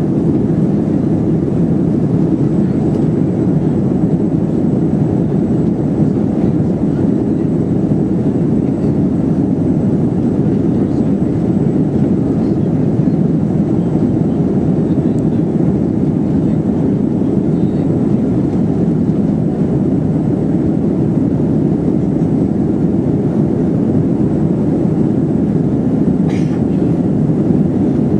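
Cabin noise inside a Boeing 737-400 in flight, heard from a seat over the wing: its CFM56 jet engines and the airflow past the fuselage make a steady, dense low rumble that does not change.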